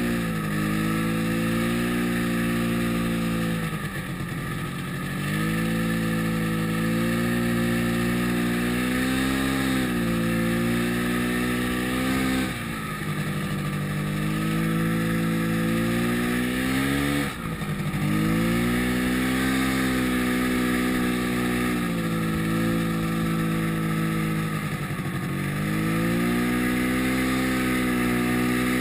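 Yamaha snowmobile engine running under throttle while riding through snow, its pitch falling sharply as the throttle is let off and climbing back again, about four times: near 4 s, 12 s, 17 s and 25 s in.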